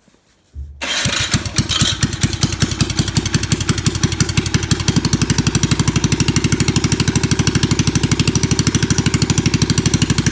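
A pocket bike's 5-horsepower single-cylinder engine starting after a brief crank about half a second in, then running with an even firing beat. It is not running right, which the owner puts down to cylinder head bolts left loose.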